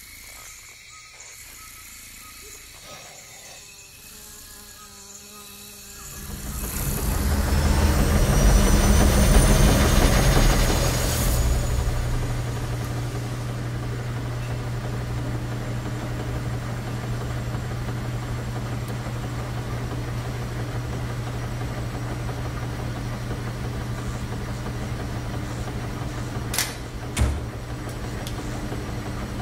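A washing machine drum spinning up: a rising rush and rumble with a climbing whine, settling into the steady low hum of washing machines running. Two sharp clicks come near the end.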